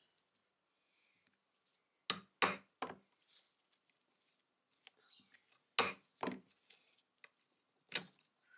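A steel pick and gloved fingers working a rust-seized part loose from a Colt Vest Pocket pistol frame held in a wood-jawed vise. About six sharp clicks and knocks come in three clusters, about two, six and eight seconds in, with faint scraping between them.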